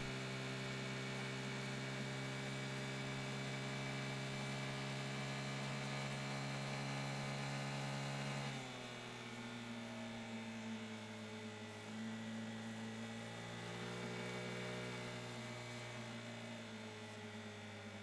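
Vespa GTS 300 HPE's single-cylinder four-stroke engine droning steadily at highway speed. Its pitch drops about halfway through as the throttle eases, then rises and falls gently.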